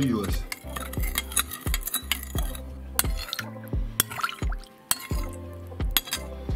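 Metal spoon stirring a citric acid solution in a glass bowl, clinking against the glass about two or three times a second.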